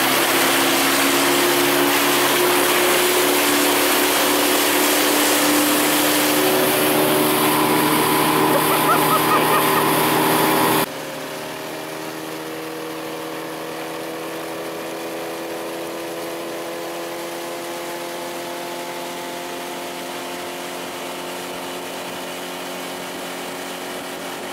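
Mercury FourStroke EFI outboard running the boat at speed, a steady engine drone under loud rushing water and wind. About eleven seconds in, the sound drops suddenly to a quieter, steadier drone with much less rushing noise.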